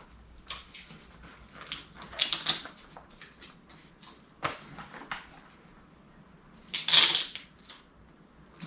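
Dry saddle bag being handled and fitted onto a motorcycle's side luggage rack: scattered small clicks and knocks, and rustling of the bag's material, with louder rustling scrapes a little past two seconds and around seven seconds.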